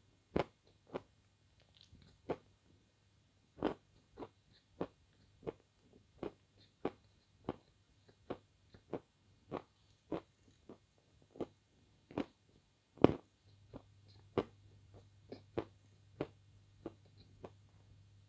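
Close-miked mouth sounds of eating cherry ice cream: short wet smacks and chewing clicks, about one and a half a second, with one louder smack about two-thirds of the way through.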